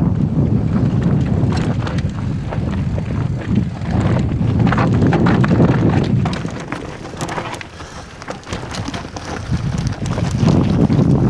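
Wind rumbling on a helmet-mounted camera while a mountain bike descends loose rocky trail, with the tyres crunching over stones and the bike rattling in many sharp knocks. It eases for a couple of seconds about two-thirds through, then picks up again.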